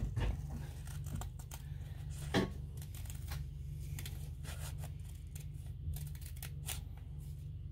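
Scissors cutting through an adhesive tape sheet in a series of short, irregular snips, over a steady low hum.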